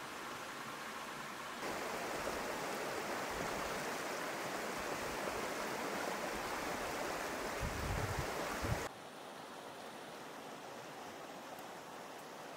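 Steady rushing outdoor ambience, chiefly wind, that gets louder about one and a half seconds in and drops suddenly near nine seconds. A few low rumbling thumps of wind buffeting the microphone come just before the drop.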